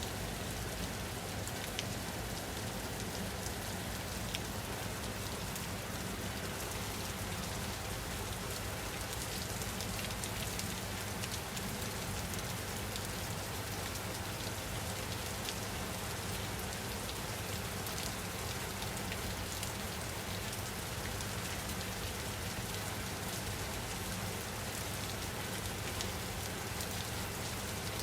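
Steady rain falling and pattering on a surface, many fine drop ticks over an even hiss.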